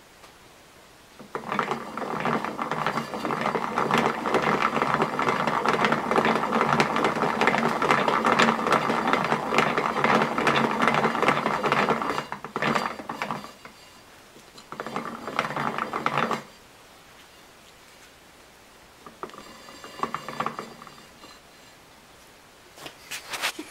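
Homemade hand-cranked wooden yarn winder running, its wooden gear teeth clattering rapidly as the crank is turned and twine winds onto the spinning ball. One long run of about ten seconds, then a few shorter bursts of cranking with pauses between.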